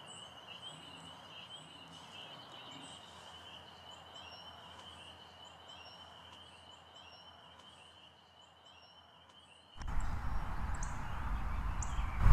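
Faint outdoor ambience with scattered bird chirps. About ten seconds in, it gives way to louder, rumbling open-air noise. At the very end comes the sharp crack of an air rifle shot.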